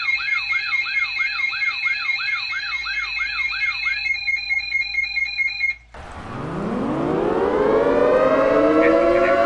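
Electronic alarm: a rapid yelping tone repeating about three times a second over steady high tones, the yelp stopping about four seconds in and the whole alarm cutting off just before six seconds. Then a multi-tone outdoor warning siren winds up, its pitch rising and settling into a steady, growing chord.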